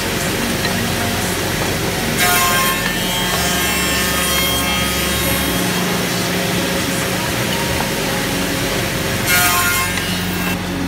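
BY-813 two-head CNC oval tenoning machine running, its spindles humming steadily while the cutters mill male tenons on wooden parts. Two louder bursts of cutting come about two seconds in and again about nine seconds in.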